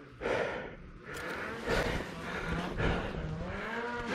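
Snowmobile engine revving while riding through deep powder, its pitch rising and falling, with a few short rushing noises mixed in.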